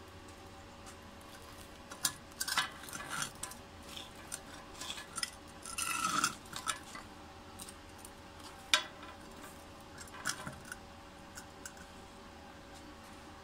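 Irregular metal clinks, knocks and scrapes as a small welded steel workpiece and the earth clamp gripping it are handled with a gloved hand on a stone surface. A faint steady hum sits underneath.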